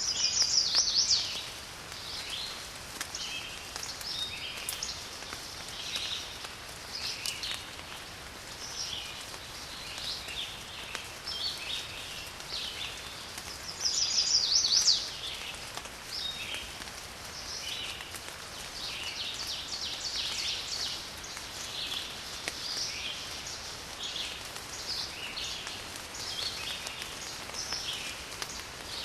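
Several small birds chirping and singing over a light, steady patter of rain. A louder rapid trill about a second long comes near the start and again about halfway through.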